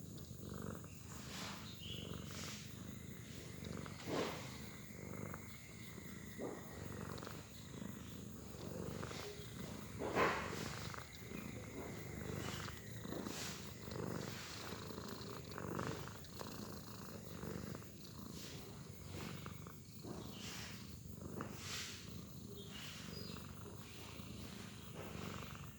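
A domestic cat snoring steadily in its sleep, a low rumble that goes on all through. A few short, sharper sounds stand out, the loudest about ten seconds in.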